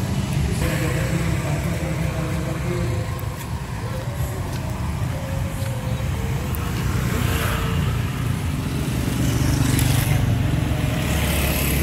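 Motor scooters and motorcycles running and riding past close by over a steady low traffic rumble, swelling a little near the end, with faint voices in the background.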